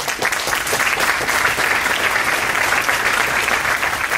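An audience applauding, steady and loud: dense clapping from many hands.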